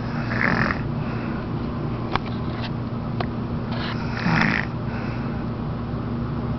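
Elderly woman snoring in sleep: two rasping snores, one about half a second in and one about four seconds in, over a steady low hum.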